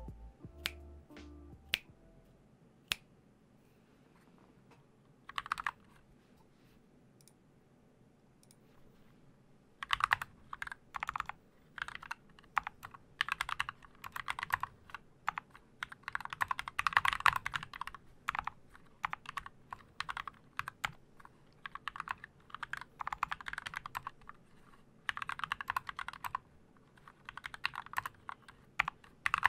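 Typing on a Glorious GMMK mechanical keyboard with lubed Gateron Black linear switches and HyperX Pudding PBT keycaps. A few stray keystrokes and one short burst come first. About ten seconds in, steady fast typing begins and goes on in quick runs.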